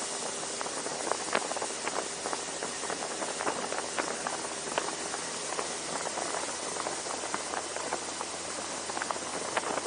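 Small motorboat under way: a steady rushing hiss of water and wind, with the faint hum of the outboard motor beneath it and many small sharp splashes and ticks scattered through.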